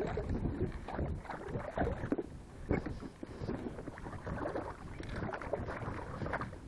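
Choppy water slapping and splashing irregularly against the hull of a small boat, over a low rumble of wind.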